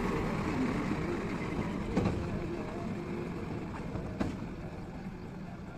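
JCB 3DX backhoe loader's diesel engine running as the machine passes close by and drives away, growing gradually fainter, with two sharp knocks about two and four seconds in.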